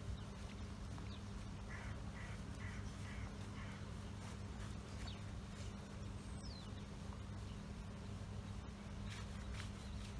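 A bird calling five times in quick succession, short calls about two a second, followed a few seconds later by a single thin, falling chirp, over a steady low hum.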